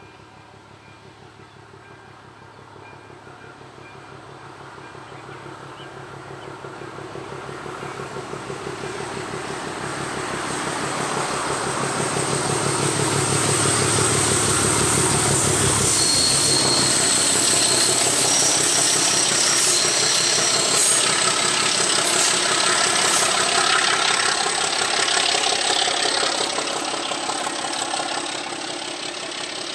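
Class 749 'Bardotka' diesel locomotive 749.039, with its six-cylinder ČKD diesel engine running, approaches and passes close by. It grows louder for about fifteen seconds, and its low engine sound drops off suddenly as it goes past. After that, high ringing wheel-and-rail noise is heard as the train moves away and the sound slowly fades.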